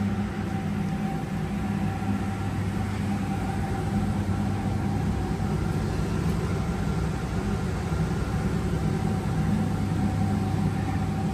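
A large engine running steadily at an even speed, with a steady whine over its low drone.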